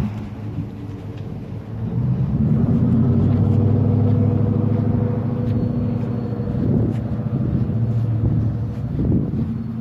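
An engine running steadily at a low, even pitch, coming up about two seconds in.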